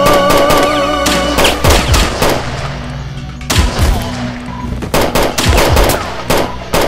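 Repeated bursts of automatic rifle fire, several rounds each with short gaps between bursts, over a held music tone that fades out about a second and a half in.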